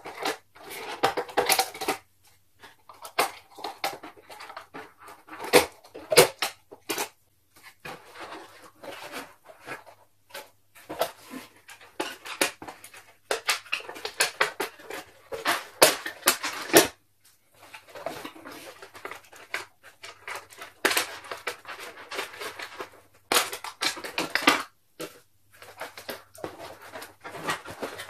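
Cardboard toy box with a clear plastic window being handled and opened: irregular crinkling, scraping and sharp clicks, with short pauses between.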